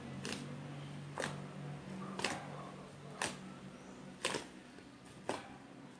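A sharp click about once a second, very evenly spaced, over a faint low hum.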